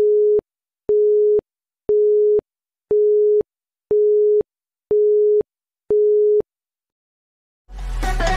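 Electronic beeping: one steady mid-pitched tone, half a second on and half a second off, seven beeps in the rhythm of a telephone busy signal. After a short silence, music fades in near the end.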